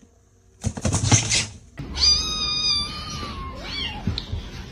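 A brief rustling scuffle about a second in, then a cat gives one long, high meow that falls slightly in pitch at the end.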